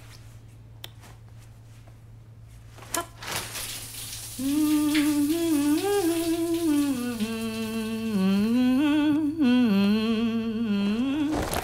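A woman humming a slow, wavering tune with no words. The humming starts about four seconds in, after a quiet stretch with a faint click.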